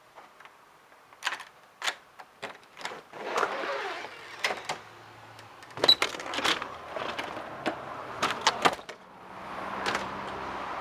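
Handling and movement noise while walking out with a camcorder: a run of sharp clicks and knocks with bursts of rustling, then steady outdoor background noise from about nine seconds in.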